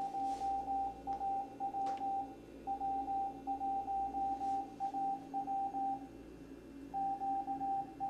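Morse code (CW) from ARRL station W1AW received on a shortwave radio: a single beep tone keyed on and off in dots and dashes over receiver hiss, with a pause of about a second near the end. It spells the bulletin's opening general call, QST QST QST de W1AW.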